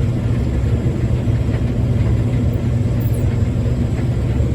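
Heavy diesel harvest machinery running steadily: a constant low engine rumble with no change in speed.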